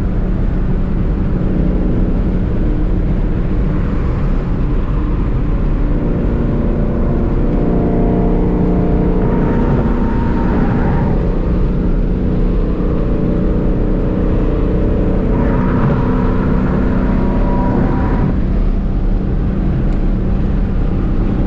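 Car engine and tyre noise heard from inside the cabin while cruising at highway speed. The engine note rises twice, about nine and fifteen seconds in, each time for a few seconds.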